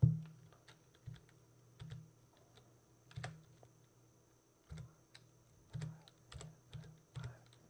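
Computer keyboard being typed on slowly: about a dozen separate keystrokes at an uneven pace, with short pauses between them, as a string of digits is entered.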